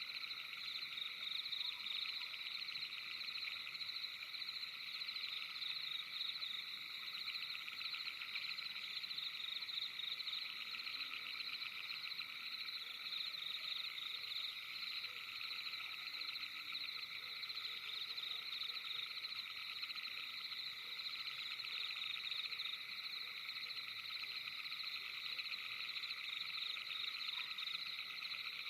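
A dense, steady chorus of frogs, many calling at once in rapid pulses.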